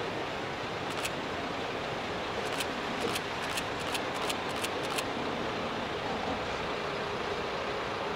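Sanriku Railway diesel railcar crossing a bridge, heard from a distance over a steady rushing background, with a run of light sharp clicks from about one to five seconds in.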